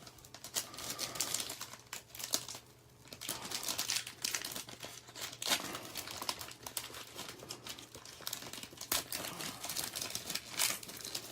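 Foil wrapper of a Panini Prizm football card pack crinkling and being torn open: a dense run of crackles with a brief lull about two and a half seconds in.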